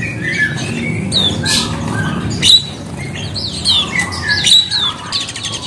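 Many small caged songbirds chirping and calling at once: short overlapping notes, several sliding down in pitch, with a few sharp clicks among them over a low steady background hum.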